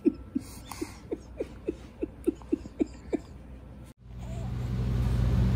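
A baby passing a quick string of about a dozen small squeaky farts. About four seconds in, a low steady buzzing drone starts and grows louder.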